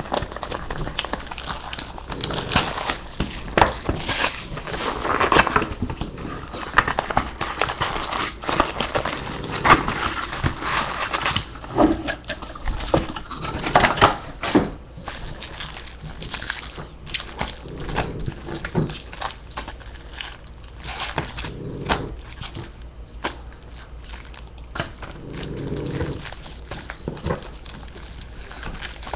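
Plastic wrapping and foil trading-card packs crinkling and crackling as a card box is opened and its packs are handled. The irregular rustles are busiest in the first half and thin out later.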